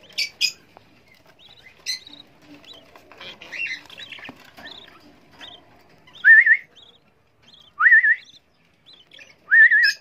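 Budgerigars calling in a nest box with young chicks: a few short chirps and clicks, soft chirping, then three loud wavering calls a second or two apart in the second half.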